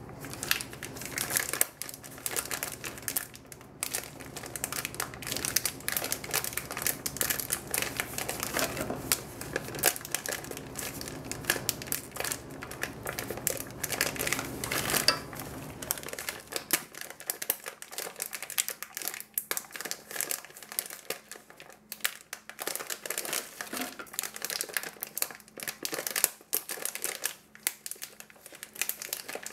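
Paper-and-foil wrapper of a chocolate bar crinkling and rustling in the hands while the bar is broken into chunks inside it, with many sharp little snaps and crackles. A low background hum under it stops about halfway through.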